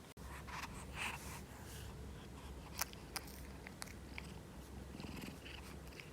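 American Shorthair cat purring steadily, with a few light clicks and soft rustles over the purr.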